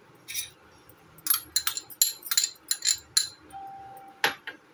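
Steel spoon clinking against white ceramic bowls: a quick run of light taps from about a second in until past three seconds, then one sharper clink near the end.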